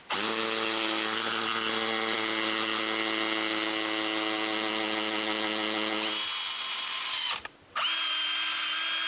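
Power drill running steadily, drilling holes for screws. It changes pitch about six seconds in, stops briefly, then starts again.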